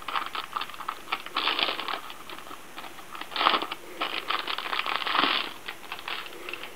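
Neptor KB300BF-WH foldable Bluetooth keyboard being handled and flexed: irregular small clicks and rattles from its keys and plastic body, with a few rustling swishes.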